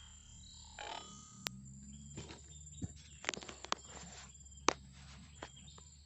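Quiet outdoor ambience: a faint steady high insect drone with a handful of sharp small clicks and snaps scattered through it.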